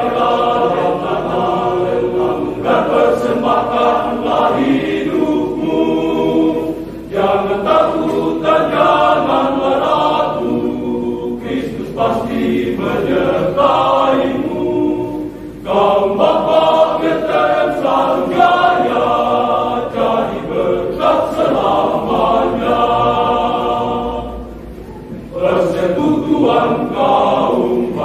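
A men's choir singing a church song in several parts, in phrases with brief breaks between them.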